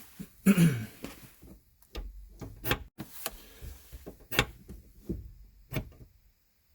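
Gear shifter and shift linkage clicking and clunking as the lever is worked to test the newly adjusted cross-cable rod end. It is an irregular series of sharp metallic knocks, the loudest about half a second in.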